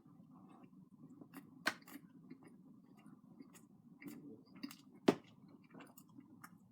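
A person chewing a mouthful of double cheeseburger, faint, with a few sharp mouth clicks, the loudest about one and a half seconds in and again about five seconds in, over a low steady background hum.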